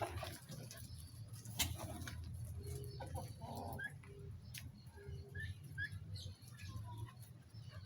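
Young turkey poults peeping, a few short scattered chirps through the middle and later part, with some lower short calls, over a steady low rumble.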